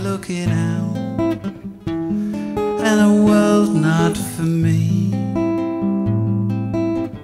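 Acoustic guitar music: an instrumental passage of a slow song, held chords with a melody line over them and a short break near the end.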